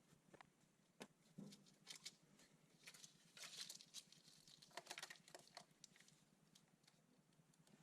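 Near silence with faint scattered clicks and light rustling, a little denser about three to five seconds in.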